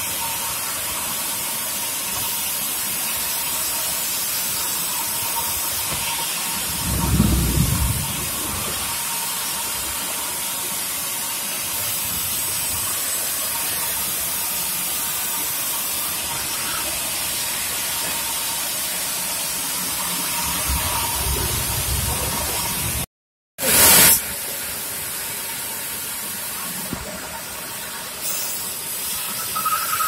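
Sawmill band saw running and cutting a log on its carriage: a steady hiss with a faint steady whine, and a low rumble about seven seconds in. The sound drops out briefly about three quarters of the way through and comes back with a short loud burst.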